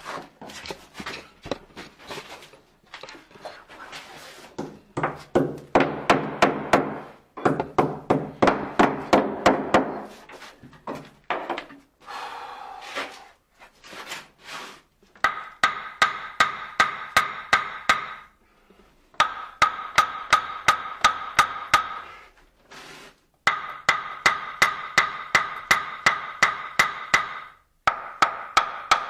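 Rapid hammer blows, about five a second, in bursts of two to three seconds with short pauses between. The later bursts ring at a steady pitch.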